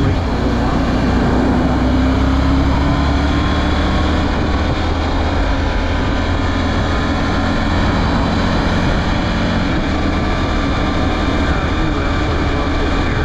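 Motorcycle cruising at highway speed: a steady, loud rush of wind on the microphone over the low drone of the engine and tyres.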